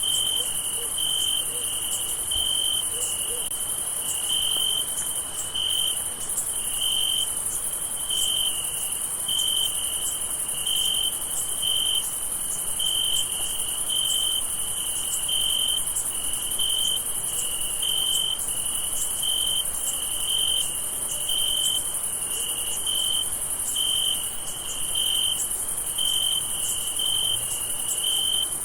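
Crickets and other night insects: a steady high-pitched trill, with a lower chirp pulsing evenly a little more than once a second over it.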